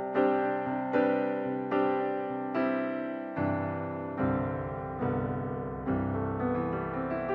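Background music: an electric piano playing chords with evenly spaced struck notes, a lower bass line coming in about three seconds in.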